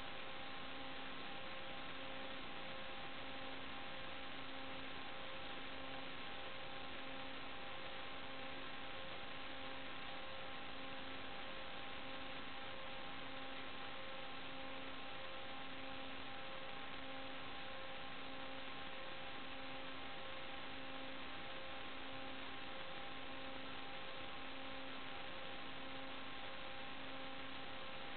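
Steady electrical hum over hiss, with a low tone that pulses about once a second, unchanged as the drone lifts off and flies: noise on the FPV video feed's audio track rather than the sound of the motors.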